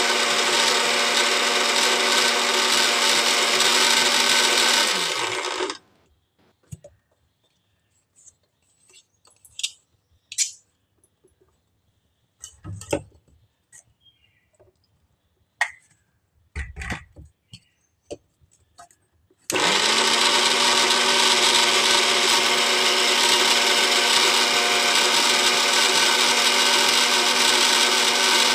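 Electric mixer grinder (mixie) running at full speed, grinding dried rose petals with cashews and almonds, with a steady whine. About six seconds in it is switched off and winds down. A few light knocks and clicks follow, then it starts again sharply about twenty seconds in and runs on.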